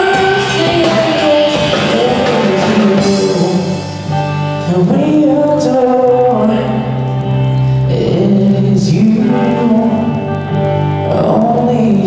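Live worship song played by a small rock band: a male singer sings over guitars, with a brief dip in loudness about four seconds in.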